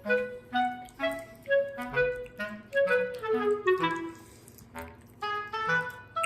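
Background music: a light melody of short, separate notes, with a falling run of notes about three seconds in and a brief lull just before the five-second mark.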